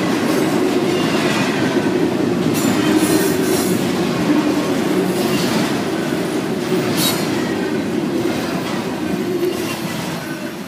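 Double-stack intermodal freight train's well cars rolling past close by: a steady rumble of steel wheels on rail, with a few brief high-pitched squeals, growing quieter near the end.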